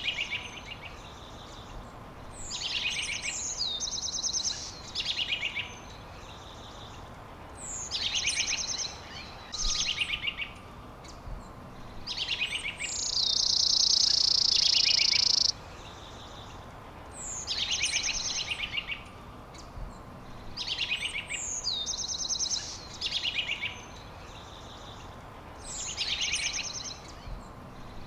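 Songbirds singing, repeating short phrases of chirps and quick trills every few seconds. About halfway through a loud, steady, high buzz lasts about two seconds and is the loudest sound.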